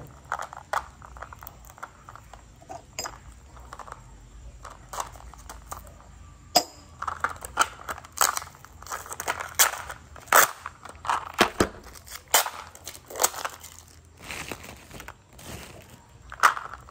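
Plastic battery packaging crinkling and crackling in the hands as it is handled and opened. The crackles and clicks come irregularly, with several louder snaps among them.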